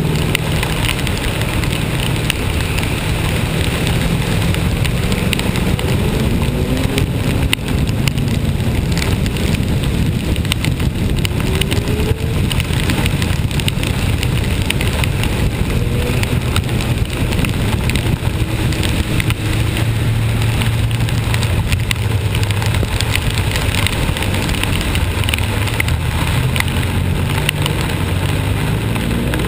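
A vehicle engine running steadily on the move, with a few short rises and falls in pitch, over a continuous hiss of rain and wet-road noise.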